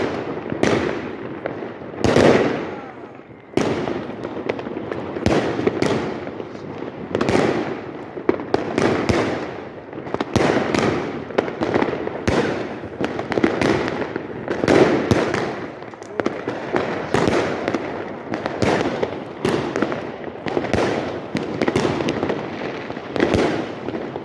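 Many fireworks and firecrackers going off at once: a dense, unbroken run of bangs and crackling, with one of the loudest single bangs about two seconds in.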